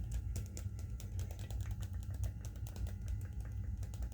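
Fingers tapping on a hard surface for ASMR: light, irregular clicks, several a second, over a steady low hum.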